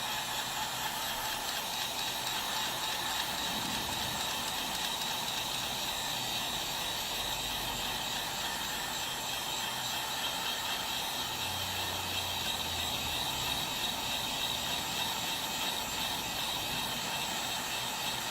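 Heat gun running steadily: a hiss of blown air with a faint high whine, warming a phone's back cover to soften its adhesive.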